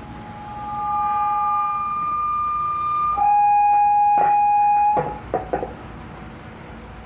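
Microphone-to-speaker feedback through a small amplifier board: a steady whistle, then about three seconds in a louder, lower whistle that holds and cuts off near five seconds, followed by a few short knocks. The whistling is the sign of the amplifier's gain being set too high for the microphone near the speaker.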